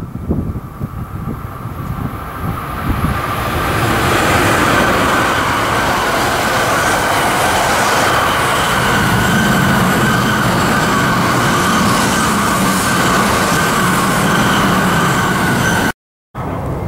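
Coupled Shinkansen trainsets passing close at high speed: light wind on the microphone at first, then a rushing roar of wheels and air that builds over a few seconds and holds steady with a hiss. The sound cuts off suddenly near the end.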